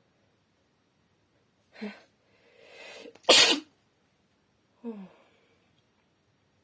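A woman sneezes once, loudly, about three seconds in. It is preceded by a short catch of the voice and a quick drawn-in breath, and followed by a brief falling vocal sound.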